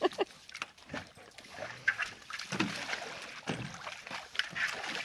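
Pool water splashing and sloshing in irregular bursts as a dog paddles and grabs at a floating buoy.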